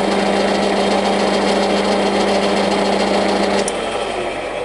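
Single-phase gap-bed centre lathe running with its spindle at 190 rpm in low range, a steady hum and gear whine. About three and a half seconds in there is a click and the running sound dies away as the lathe is stopped.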